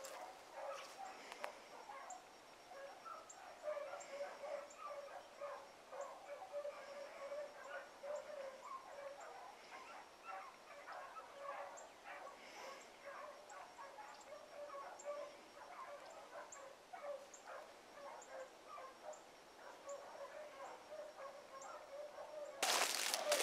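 Pack of rabbit dogs barking and yipping faintly as they run a rabbit through the brush, many short calls overlapping. A louder burst of noise comes in near the end.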